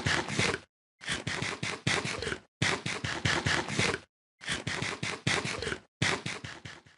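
A dog crunching dry kibble: bursts of crisp crunches, each about a second and a half long, broken by short silent gaps and repeating about five times.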